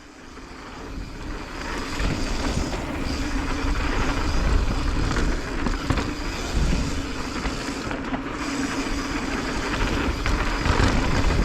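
Mountain bike rolling fast down a dirt trail: wind rushing over the microphone and the tyres rolling over dirt, a steady noise that builds up over the first two seconds.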